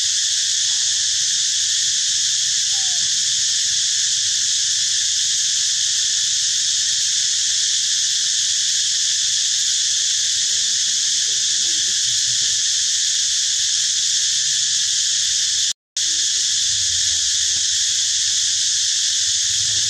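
Steady, loud chorus of forest insects. It drops out completely for an instant about three-quarters of the way through.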